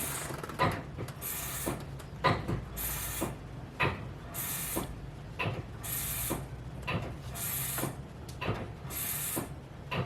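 Brake pedal being pumped repeatedly while the brake lines are bled. Each stroke gives a short mechanical click and hiss, about every second and a half, over a steady low hum.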